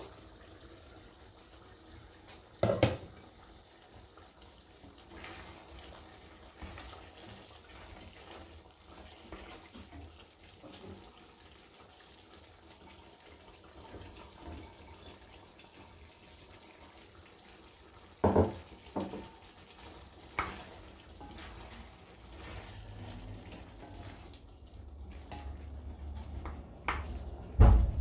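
Cooking sounds at an enamelled cast-iron pot of pork stew: a faint steady simmer, broken by a few sharp knocks of cookware against the pot. One knock comes about three seconds in, three come close together around eighteen to twenty seconds, and the loudest comes at the very end as a wooden spoon starts stirring.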